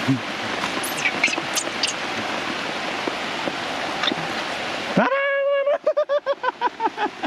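Heavy rain pouring steadily, with a few brief high squeaks. About five seconds in the rain cuts off abruptly, and a voice calls out in one long held note followed by quick repeated syllables.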